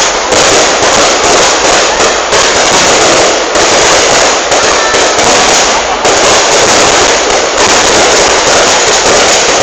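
Aerial fireworks display: a dense, continuous barrage of bangs and crackling, with no break.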